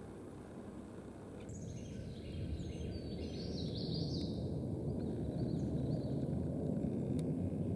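A small songbird sings a high, jumbled phrase of several seconds, set against a steady low rumble that grows louder partway through.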